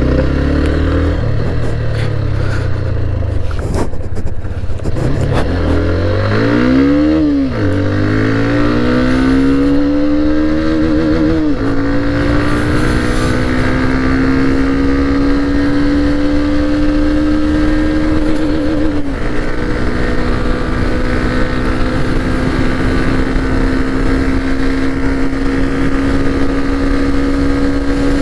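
Hero Xtreme 125R's single-cylinder engine under way, its pitch climbing as it accelerates, dropping at an upshift about twelve seconds in, climbing more slowly, dropping at another shift near nineteen seconds, then holding almost steady.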